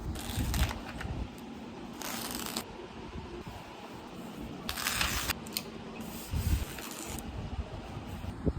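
Four short rasping strokes, spread a second or two apart, from handwork on the cricket bat.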